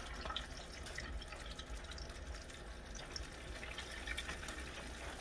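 Floured chicken pieces deep-frying in a pot of hot oil: a steady sizzle broken by many small crackles and pops.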